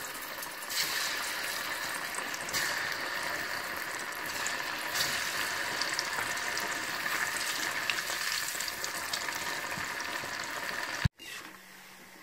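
Taro root pieces deep-frying in hot groundnut oil in a kadai: a steady sizzle and bubbling of the oil. The sound cuts off abruptly about eleven seconds in, leaving a quieter stretch with a faint low hum.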